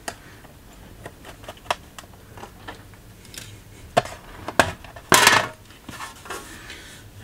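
Handling of a 15-inch early 2011 MacBook Pro's aluminium bottom case as it is taken off: light clicks and taps, two sharp knocks, then a short, louder scrape of metal about five seconds in as the panel comes free.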